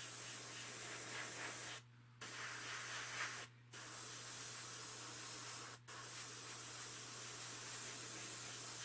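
Airbrush hissing as it sprays paint at very low pressure. The hiss stops briefly three times.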